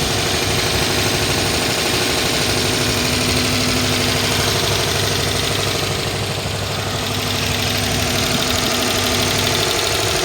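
2011 Dodge Charger PPV's 5.7-litre HEMI V8 idling rough with a steady tapping, clacking noise and a steady misfire. The tapping seems to come from the top of the engine, a sign of a bad motor.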